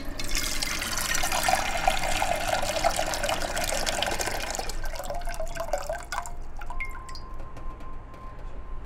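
Kitchen sink faucet running a stream of water into a saucepan, shut off about five seconds in, then a few drips from the spout.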